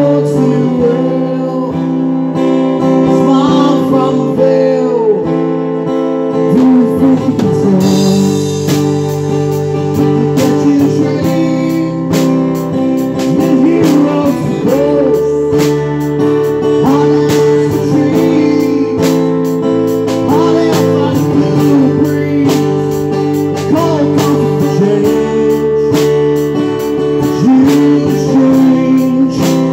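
Live rock band playing an instrumental passage: a lead electric guitar line full of bent notes over strummed acoustic guitar and a drum kit. The drums and cymbals come in harder about eight seconds in.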